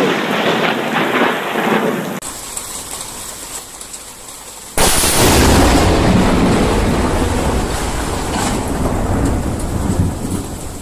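Rain falling during a thunderstorm; a couple of seconds in it cuts away. About five seconds in, a sudden, very loud thunderclap from a close lightning strike breaks out and rumbles on for several seconds.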